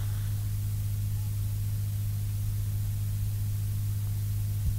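Low, steady electrical hum with a faint hiss from an old recording, and a soft click near the end.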